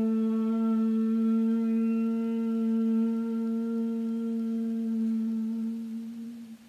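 A woman's voice chanting a long 'om' on one steady pitch, the open vowel closing into a hum and fading out near the end.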